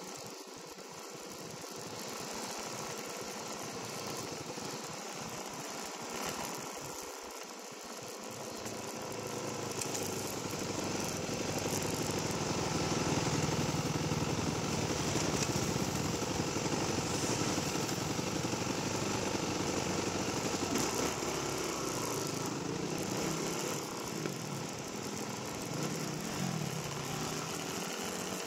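Dirt bike engine running, growing louder over the first ten seconds or so and then holding steady, with the pitch rising and falling near the end as the throttle changes.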